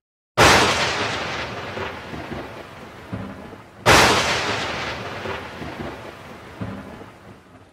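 Thunder sound effect: two thunderclaps about three and a half seconds apart, each a sudden crack that fades away slowly over a few seconds.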